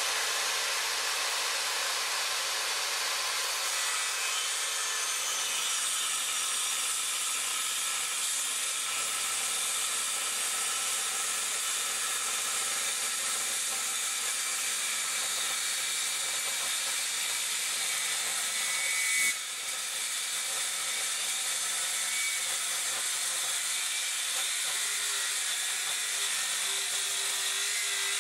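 Circular saw cutting steadily through a thick block of recycled hardwood, with its blade tilted for an angled cut. About two-thirds through, the sound swells for a moment, dips sharply, then carries on.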